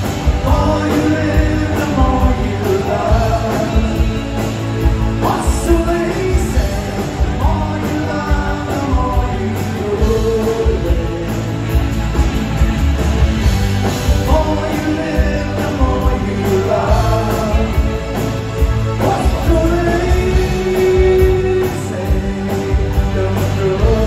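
New wave band playing live: a male lead vocal over keyboard synthesizer, electric guitars, bass and drums, heard through the venue's PA from the audience.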